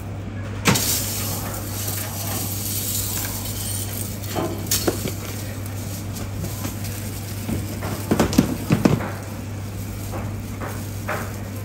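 Crushed ice clinking and crunching as it is tipped from a metal scoop into a ceramic dish and pressed flat by a gloved hand, with a few sharp clinks and the loudest cluster of knocks around eight to nine seconds in, over a steady low hum.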